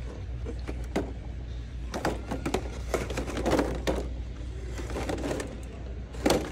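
Plastic blister-packed toy monster trucks clacking and crinkling against one another and the metal display pegs as a hand digs through them: an irregular run of clicks and rustles over a steady low hum.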